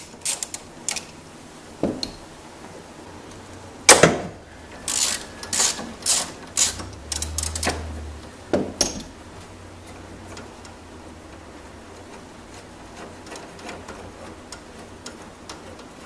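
3/8-inch hand ratchet with an extension and 14 mm socket clicking in short runs as it undoes a bracket bolt, with metal clinks of the tool against engine parts. A sharp knock about four seconds in is the loudest sound, and a cluster of clicks follows between about five and nine seconds.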